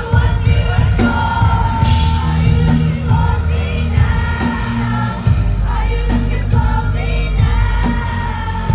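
Live band playing a loud amplified song with heavy bass and drum hits, while the lead singer sings into a microphone.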